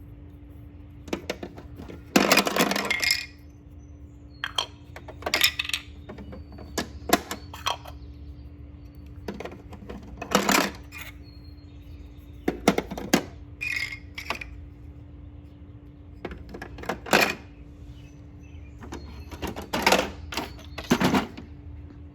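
Plastic shape pieces knocking and rattling as they are pushed through the slots and dropped into a toy shape-sorter box: about a dozen separate clatters spread out, the longest about two seconds in, over a steady low hum.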